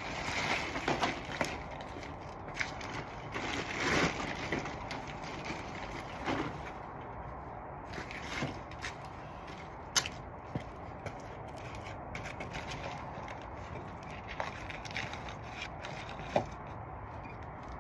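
Hutch covers being pulled down and fastened over a rabbit hutch: intermittent rustling and scraping with scattered light knocks and clicks, over a steady hiss.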